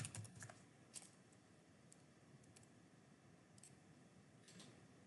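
Near silence with a handful of faint, scattered clicks from a computer keyboard and mouse as a number is typed in.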